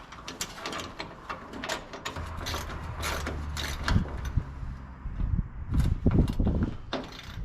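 Irregular clicks, knocks and clanks of hand tools and bolt hardware on a jeep's metal body, with a low steady hum for a couple of seconds near the middle.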